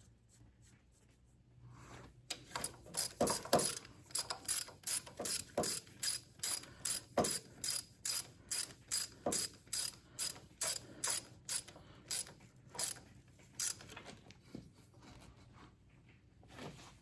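Hand ratchet wrench clicking in a steady rhythm of about two to three clicks a second as it is swung back and forth, drawing up the mounting nuts on a tractor's diesel injection pump. The clicks thin out to a few scattered ones near the end.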